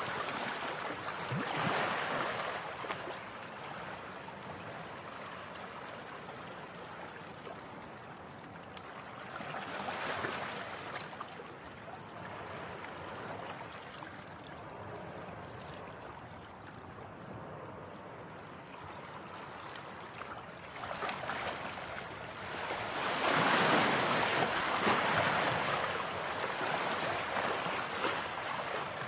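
Waves washing in: a steady rush of water that swells and fades, with a swell about two seconds in, another about ten seconds in, and a longer, louder one near the end.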